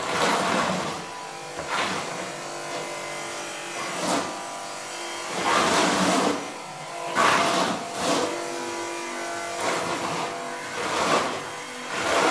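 Steel notched trowel with half-round teeth scraping and swishing through wet, flowable tile adhesive on a floor, in repeated strokes every second or two.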